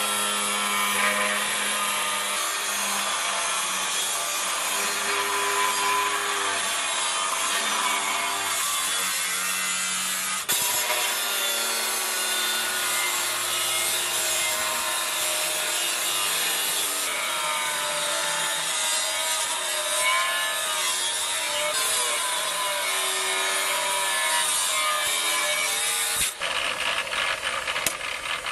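Makita angle grinder with an abrasive cut-off disc cutting lengthwise through a steel chainsaw guide bar: a continuous loud grinding screech, the motor's pitch wavering as the disc bites. Near the end it gives way to a quick run of clicks.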